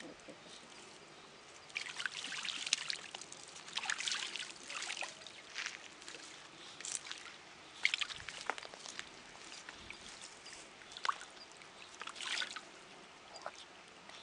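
White call duck bathing in a small water basin, splashing and sloshing the water in repeated short bursts.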